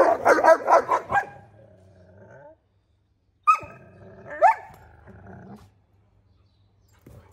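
Kangal puppies play-fighting: a quick run of growls and barks in the first second or so, then two single sharp barks about three and a half and four and a half seconds in.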